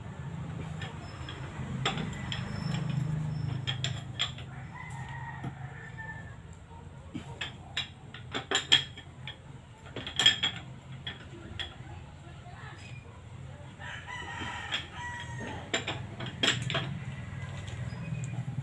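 A rooster crowing, mixed with sharp metal clinks and knocks of a wrench being worked at a vehicle's wheel; the loudest clinks come about nine and ten seconds in.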